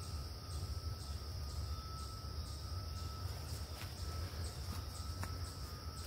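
Steady insect chorus: crickets trilling in one continuous high-pitched band, over a low rumble, with a few faint clicks.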